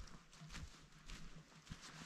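Near silence, with faint soft knocks about twice a second.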